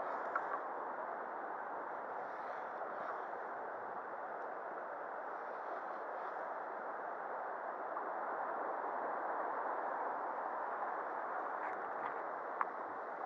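Steady rush of shallow river water running over stones, with a few faint clicks near the end.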